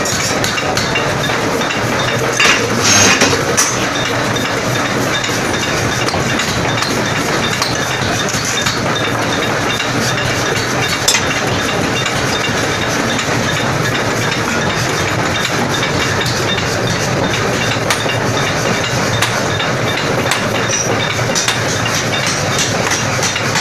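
Forging power hammer running with a steady mechanical noise while hot steel is forged on its die. A few sharp metallic clinks and knocks come through, a cluster about three seconds in and another about eleven seconds in.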